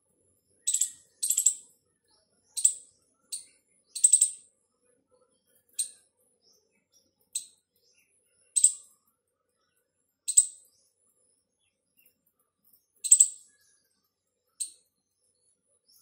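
Indian palm squirrel calling: sharp, high-pitched chirps, some single and some in quick runs of two or three, repeated at irregular intervals of one to two seconds.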